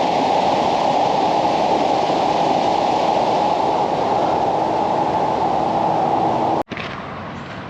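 Steady rushing of river water through a rocky gorge. It cuts off sharply about six and a half seconds in, leaving a much quieter outdoor background.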